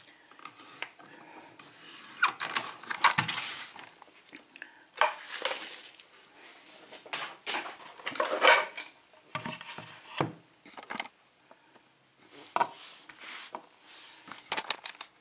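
Scattered small metallic clicks and clinks of a brass Kwikset lock cylinder being handled: lifted out of a vise, turned in the fingers and set down on a rubber mat.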